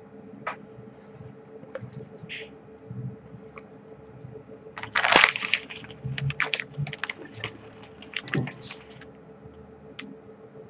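Computer keyboard being typed on, scattered keystrokes with a dense flurry about five seconds in, heard through a voice-call microphone over a faint steady hum.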